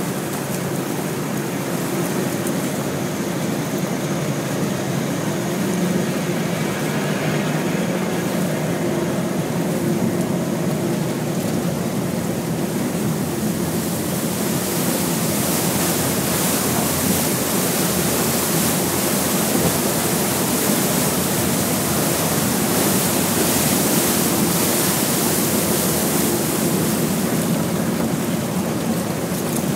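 A boat's hull pushing through river ice: a steady rushing and grinding of broken ice slabs and water along the side, over a low, steady engine drone. The hiss grows louder about halfway through.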